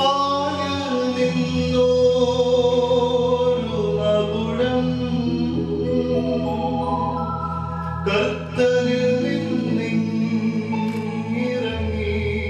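Church choir singing a hymn over held low accompanying notes that shift every few seconds, with a brief sharp click about eight seconds in.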